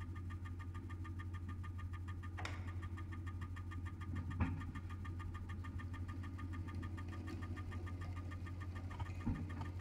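Experimental electroacoustic improvisation: a steady low hum under a fast, evenly repeating pulse, broken by a few isolated knocks, the loudest about four and a half seconds in.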